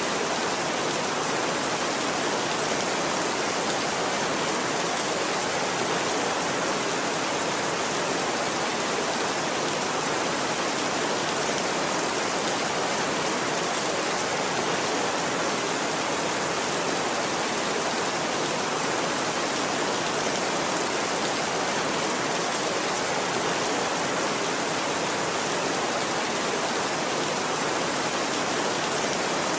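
Steady rain falling, a dense even hiss of drops with no changes in strength.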